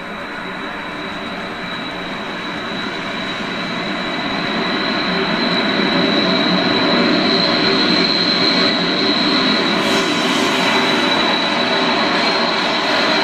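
HO-scale model train, a steam locomotive pulling coaches, rumbling along the track and growing louder as it approaches, then holding steady. A steady high-pitched whine runs over the rumble.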